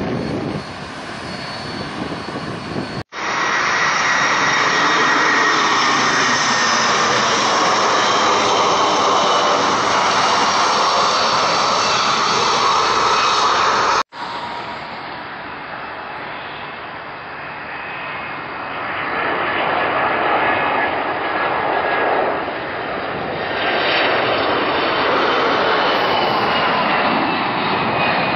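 Jet engines of Boeing 767-300ER airliners on final approach and landing, passing close by with a steady jet sound and a high whine. The sound breaks off abruptly twice as one landing clip cuts to the next.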